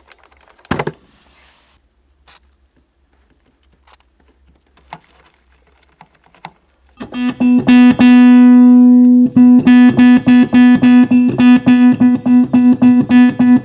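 Amplified vintage electric keyboard tested after a repair. A click about a second in over a faint low hum. From about seven seconds in, the same note is struck rapidly again and again, held once, then rapidly repeated, showing the instrument sounds again.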